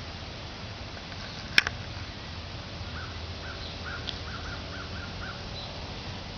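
A border collie crunching on raw chicken, with one sharp crack about a second and a half in. In the second half, a bird calls in a quick run of about eight short notes.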